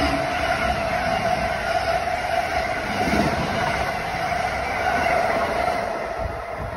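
Amtrak passenger train's coaches rolling past at speed: a steady rumble of wheels on rail with a sustained hum, easing off near the end as the train pulls away.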